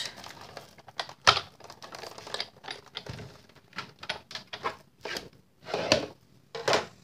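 Big Shot die-cutting machine being hand-cranked to cut paper with dies, giving an uneven series of clicks and knocks as the plates go through the rollers. There is a sharp knock about a second in and a louder clatter near the end.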